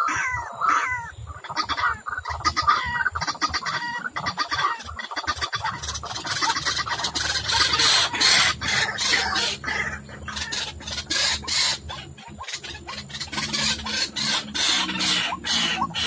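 White-breasted waterhen calling in rapid repeated notes that become a denser, faster run about six seconds in. This is the call used to lure waterhens to a mirror trap.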